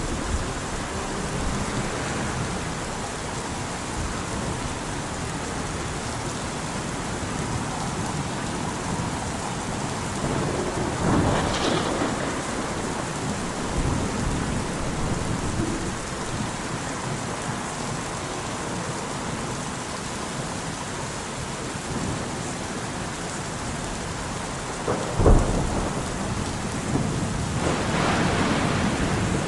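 Steady rain with thunder: a rumble swells about eleven seconds in, a sharp loud clap comes about twenty-five seconds in, and another rumble builds near the end.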